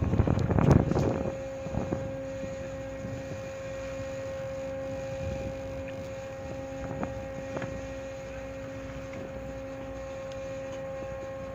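Steady hum of ship's machinery: one clear tone with a few overtones. Wind buffets the microphone for the first second or so.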